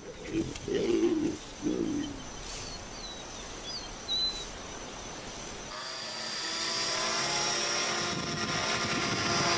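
A couple of short low calls and a few bird chirps, then from about six seconds in the steady whine of a small radio-controlled model helicopter's motor and rotor, the dragonfly-shaped spy camera, growing slightly louder.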